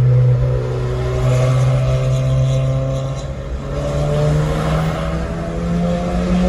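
VW Polo 6R GTI's four-cylinder petrol engine pulling under throttle, heard from inside the cabin. It holds steady revs at first, then climbs steadily through the second half as the car enters a tunnel.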